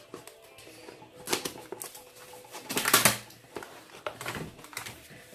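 Cardboard box and packaging being handled and opened: irregular rustling and scraping with small clicks, loudest about three seconds in.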